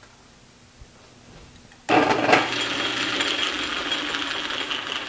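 A metal lathe switched on about two seconds in, then running steadily, its spindle and exposed change gears whirring with a metallic rattle.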